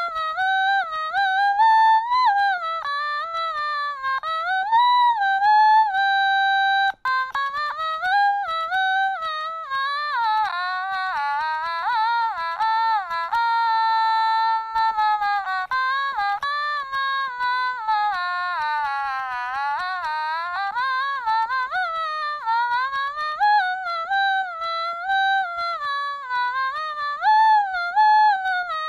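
Otamatone playing a melody in its nasal, voice-like tone, with frequent swoops and slides in pitch between notes. A lower second part sounds briefly around the middle.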